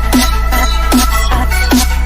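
Electronic dance-remix music with no singing: a sustained deep bass line under a punchy, repeating drum beat.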